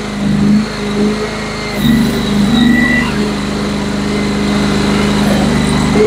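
GroundHog LT23-2 mini tracked skid steer's gasoline engine running at part throttle. The engine note shifts and rises slightly about two seconds in, then holds steady.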